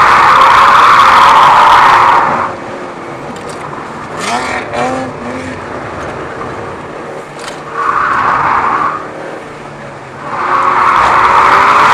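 Tyres of a Mitsubishi Lancer Evolution VIII squealing through corners on hardened old slicks: a loud squeal at the start lasting about two seconds, a shorter one about eight seconds in and another from near the end, with the car's turbocharged four-cylinder engine running underneath. About four seconds in there is a short burst of rising engine sound with clicks.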